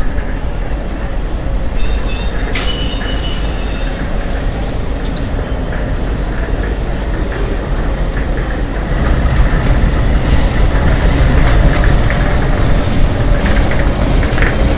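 Indian Railways diesel locomotive approaching, its engine rumble growing louder from about halfway through as it comes closer. A brief high metallic squeal with a click about two and a half seconds in.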